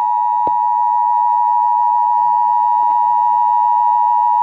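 Emergency Alert System attention signal on AM radio: a steady, loud two-tone alert tone announcing a tornado warning, with a short click about half a second in.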